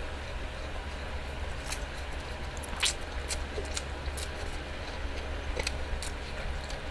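A person slurping and chewing fried instant noodles: short wet mouth clicks and smacks, one a little louder about three seconds in, over a steady low hum.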